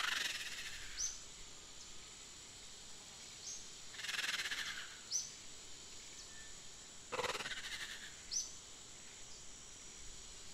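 Nature ambience: short high bird chirps about every two seconds over a faint steady hiss, with three noisy swishes of about a second each, near the start, in the middle and about two-thirds of the way through.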